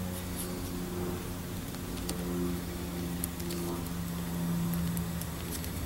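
A steady low mechanical or electrical hum, with faint small clicks and rustles of wires and heat-shrink tubing being handled.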